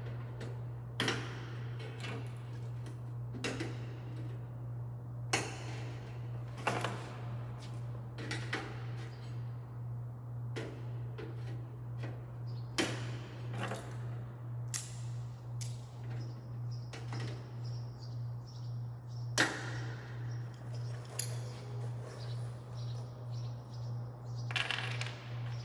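Light-gauge steel stud and track pieces knocking and clanking as they are handled and fitted together: irregular sharp metallic knocks and clicks every second or two, over a steady low hum.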